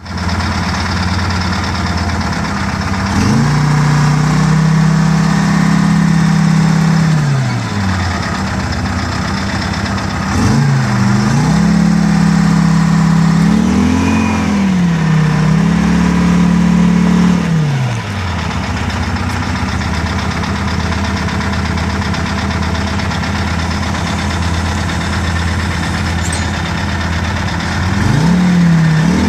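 A rebuilt Detroit Diesel 4-53, a two-stroke four-cylinder diesel, running in a 1977 Trackmobile 5TM rail car mover. It idles and is revved up and held several times: about three seconds in until about eight seconds, again from about ten to eighteen seconds with a brief dip partway, and once more near the end.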